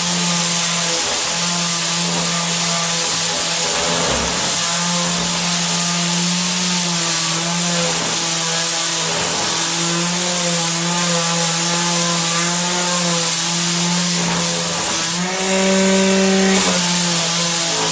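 Electric sander running with a steady motor hum over a sanding hiss. The motor's pitch steps up briefly about fifteen seconds in, then settles back.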